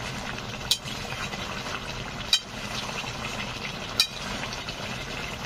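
Long metal spatula stirring a thick chicken and potato curry in a metal pan, striking the rim with three sharp clinks about a second and a half apart, over a steady hiss.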